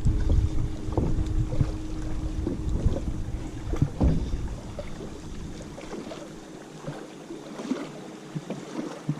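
Wind buffeting the microphone in a canoe, with scattered small knocks and clicks. The low rumble drops away about six seconds in.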